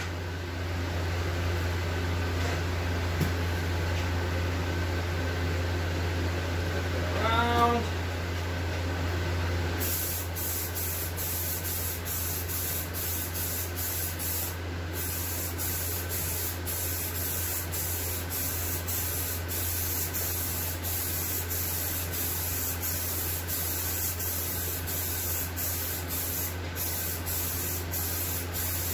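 Aerosol can of Rust-Oleum Peel Coat hissing as a coat is sprayed on in passes. The hiss grows sharper about ten seconds in and is broken by many short pauses between strokes. A ventilation fan hums steadily underneath.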